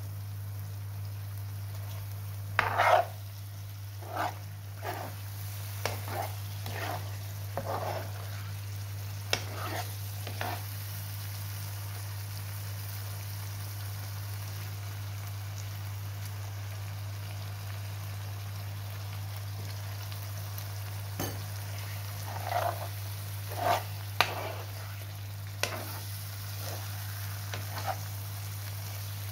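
A metal spoon stirring and scraping chunks of lamb liver in a dark non-stick pan: two spells of short scrapes with a lull between. A steady low hum runs beneath.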